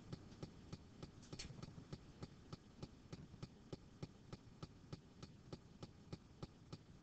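Faint, quick ticks of a stylus writing on a pen tablet, several a second, over a low hum.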